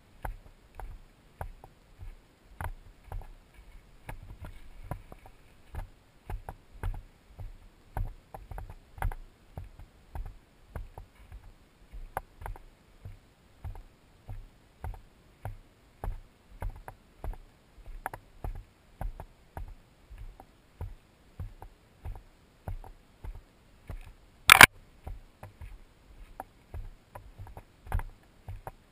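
Footsteps on a dirt hiking trail at a steady walking pace, with the thumps and rubbing of a body-carried camera jostling against clothing. One sharp, loud click near the end.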